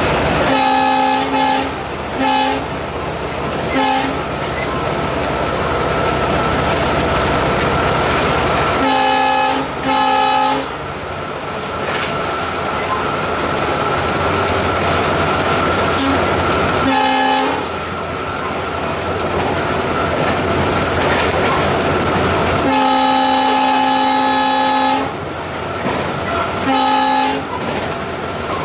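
Horn of an EMD WDP4B (GT46PACe) diesel-electric locomotive heard from inside its cab, sounding about eight times: mostly short blasts, in a few groups, and one longer blast of about two seconds a little past two-thirds of the way in. Under it runs the steady noise of the locomotive and its wheels at speed, with a steady whine.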